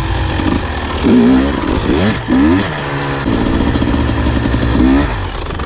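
Dirt bike engine revving: a few quick throttle blips rising in pitch, then held at a steady higher speed for a couple of seconds, with another rise near the end.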